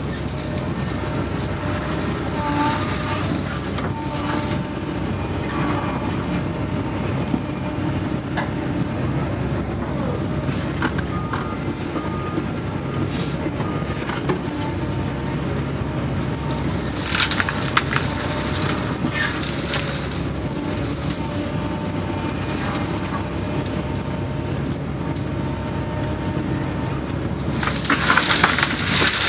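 Doosan excavator's diesel engine running steadily while digging, heard from inside the cab. Short spells of crackling, crunching noise come about two-thirds of the way through and again near the end, as the bucket works through brush and muck.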